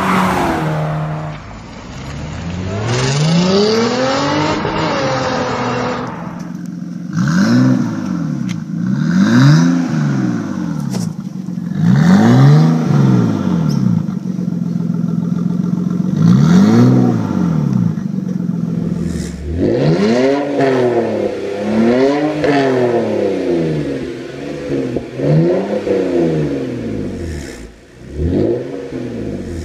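Parked cars' engines revved through their exhausts, one car after another, among them a Nissan Skyline R32 GTS-T's turbocharged straight-six: about ten quick revs, each climbing and falling back to a steady idle, a second or two apart.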